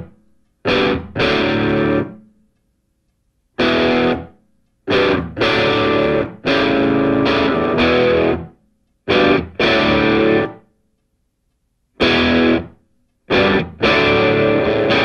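Background music: distorted electric guitar chords played in stop-start phrases, some short stabs and some held, each broken off by a complete silence.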